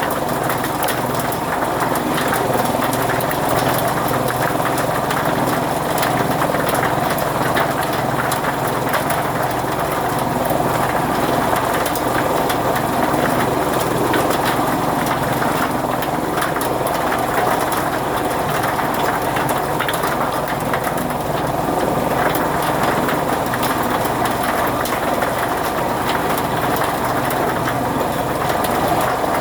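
Fodder chaff cutter running steadily, with a continuous engine-like drone that does not change.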